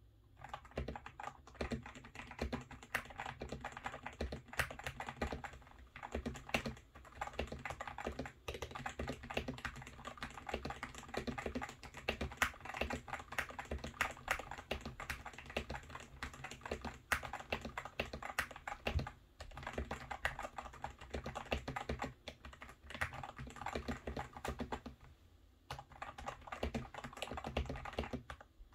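Typing on a GMMK Pro mechanical keyboard fitted with lubed Gazzew Boba U4T tactile switches, tape- and foam-modded: fast, continuous keystrokes, with a short pause near the end.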